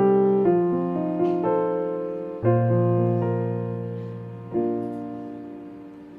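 Background piano music: slow chords struck every second or two and left to ring and decay, fading out near the end.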